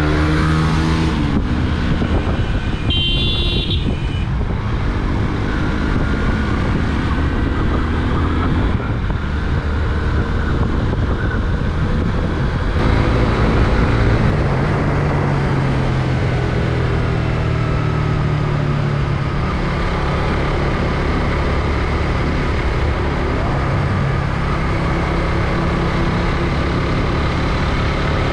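Motorcycle engine running on the road, its pitch rising and falling as it speeds up and slows, under a steady rush of wind noise. A short high tone sounds about three seconds in.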